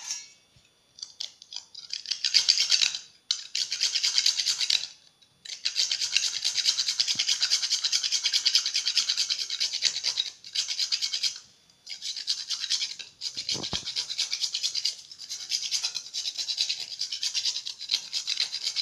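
A whole nutmeg being grated on a small hand-held metal grater: rapid, rhythmic rasping strokes in runs, broken by short pauses.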